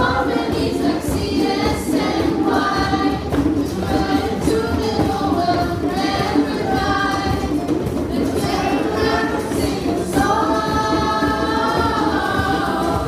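A group singing together over steady hand drumming on djembes, with a long held sung note near the end.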